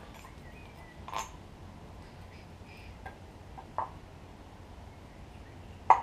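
Hand tools knocking and clinking against engine parts while cam gears are fitted, a handful of short sharp hits with the loudest near the end. Faint bird chirps sound in the background.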